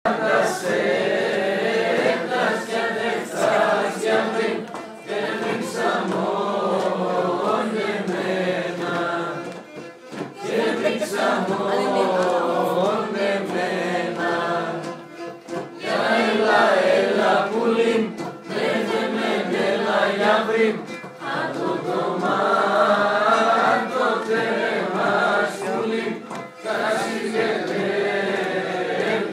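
A group of people singing a Greek song together around a table, a convivial sing-along, phrase after phrase with a couple of brief pauses.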